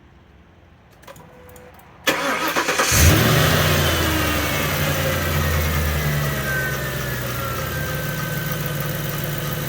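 Ford modular V8 cranking on the starter about two seconds in, catching about a second later and settling into idle, its pitch falling. Through the idle runs the tick that the owner traced to a worn serpentine belt tensioner.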